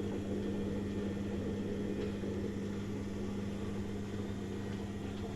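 Front-loading washing machine running its cycle, a steady hum.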